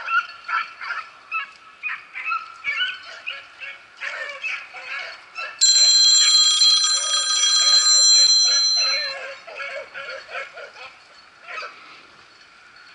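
Beagles baying and yelping over and over. About halfway through, a loud steady high ringing tone cuts in suddenly for about three and a half seconds, then breaks off. The baying continues under it and thins out towards the end.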